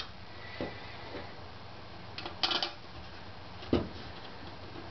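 Small clicks and clatter of screws and parts being handled against a 3D printer's metal bed plate as a part is fitted by hand, with a quick run of clicks about halfway and a single sharper knock about three-quarters through, over a steady low hum.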